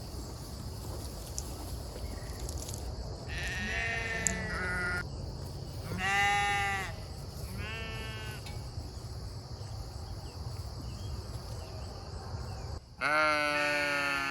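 Sheep bleating: four calls, the loudest about six seconds in and a long one starting near the end.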